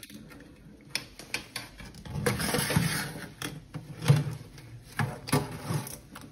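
Live Dungeness crabs' legs and shells clicking and scraping on a stainless steel sink, with metal tongs knocking against them. The clicks are irregular, with a stretch of scraping about two seconds in and the loudest knock just after four seconds.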